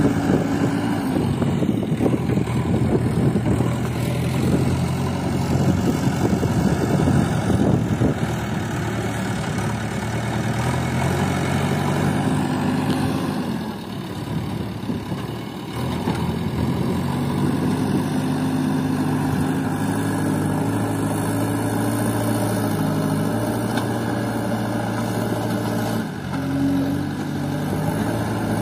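Diesel engines of a JCB backhoe loader and an HMT tractor running together. The engine note rises and falls several times as the loader works its bucket, with a quieter spell about halfway through.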